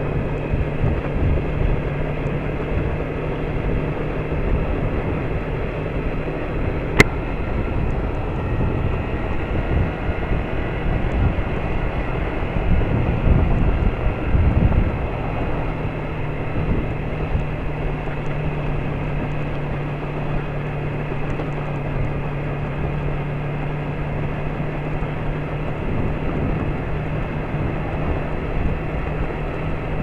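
Yamaha MT-03 motorcycle riding at a steady road speed over cobblestones, a steady engine note under wind and road rumble; the engine note drops away briefly around the middle. A single sharp click about seven seconds in.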